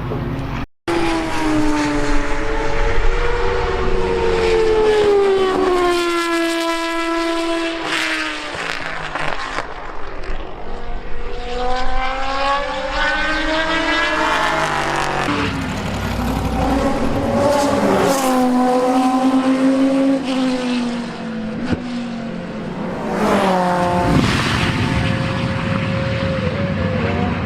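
Racing car engines at high revs on track, the pitch climbing and dropping repeatedly through gear changes as the cars pass. There is a brief cut-out about a second in.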